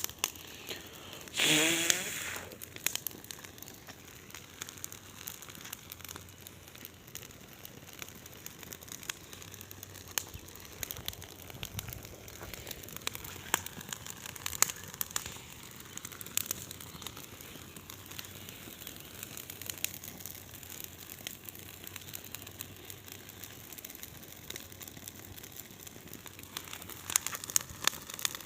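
Large bonfire burning with continual crackling and sharp popping of the wood. About a second and a half in, a loud brief sound rises in pitch over the crackle.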